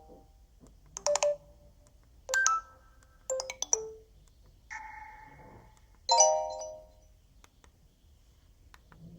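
Alcatel 3088 phone playing one of its built-in ringtones: five short phrases of bright electronic chime notes over about six seconds, then it stops.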